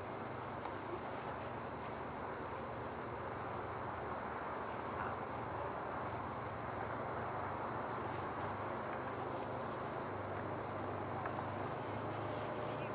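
Steady outdoor ambience: an insect's continuous high-pitched trill over an even low background rush.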